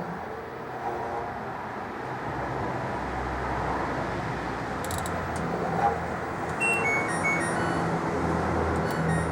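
LG direct-drive washing machine running with a steady rumble and hum. Two-thirds of the way in comes a series of short electronic beeps, typical of its control panel being pressed.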